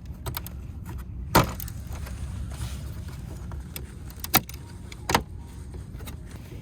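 Sharp plastic clicks and taps as a replacement emblem's clips are pressed into their holes in a removed car bumper. One loud click comes about a second and a half in, and two more follow later.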